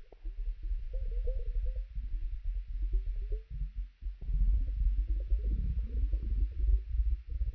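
Stomach rumbling slowed down: a string of low gurgles and arching, whale-like moans over a steady deep rumble, briefly dropping away about halfway through before coming back denser.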